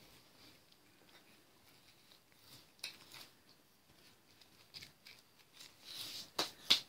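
A cat nibbling and crunching a Wotsit cheese puff. There are faint scattered crunches, then near the end a quick run of sharper crunches about three a second.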